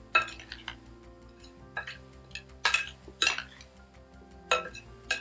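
Metal spoon stirring a minced beef salad in a glass bowl, striking and scraping the glass in a run of sharp clinks at uneven intervals, over quiet background music.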